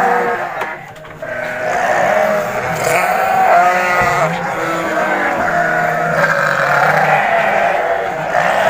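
Several sheep and goats bleating in a pen, their calls overlapping, with a brief lull about a second in.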